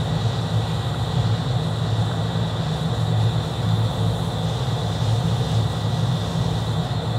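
A steady, unbroken mechanical drone, low and loud, with a faint high whine over it, like running machinery.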